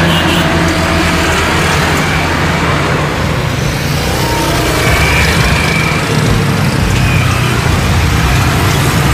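Twin-engine jet airliner on final approach to landing, its engines giving a loud, steady rumble and hiss.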